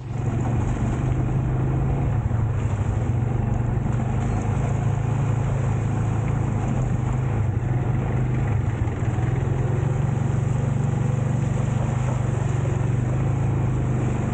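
Motorcycle engine running steadily under way, a constant low hum, with a steady rushing noise of wind and wet road over it.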